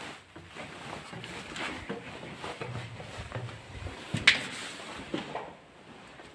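Footsteps and scuffs of a person climbing a staircase, with irregular soft knocks, and one sharp knock a little past four seconds in, the loudest sound, followed by a softer one about a second later.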